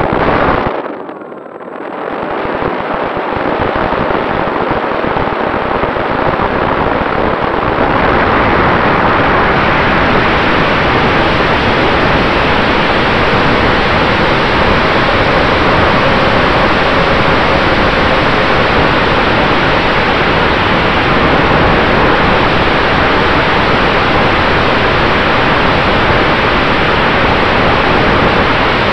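Propeller blast and rushing air over a camera mounted on the nose of an electric RC warbird, the E-Flite F4U Corsair: a brief rush, a dip about a second in, then a steady loud rushing noise that builds as the motor is throttled up for takeoff and stays loud in flight.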